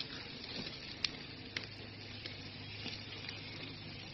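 Chicken drumsticks sizzling on a gas grill: a steady hiss with a few sharp crackles.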